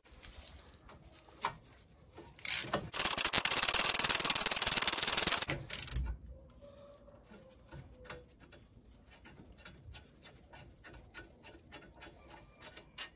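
Socket ratchet clicking rapidly while a loosened 19 mm brake caliper bracket bolt is spun out, a loud run of about three seconds, followed by quieter, slower clicking as the bolt is unscrewed the rest of the way.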